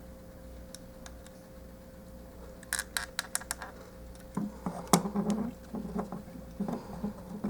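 Plastic parts of a Transformers action figure clicking and knocking as they are worked into place: a quick run of sharp clicks about three seconds in, then a string of softer knocks and clicks.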